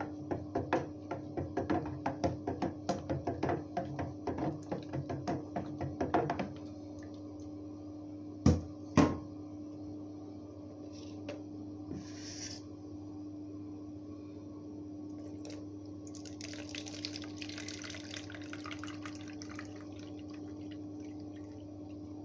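A wooden spoon stirs thick blended cucumber pulp in a plastic blender jug, knocking rapidly against the sides for about six seconds, followed by two louder knocks. Later comes a few seconds of liquid splashing as the juice is poured through a mesh strainer, over a steady low hum.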